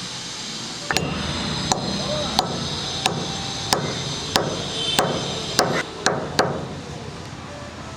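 Fresh galangal root being pounded with a pestle in a mortar to crush it: about ten sharp strikes at an uneven pace, roughly one every two-thirds of a second, starting about a second in and stopping a little after six seconds.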